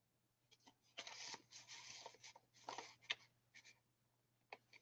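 Faint rustling of paper and card as a tag is slid back into a page pocket of a handmade paper journal, with a few soft ticks of handling.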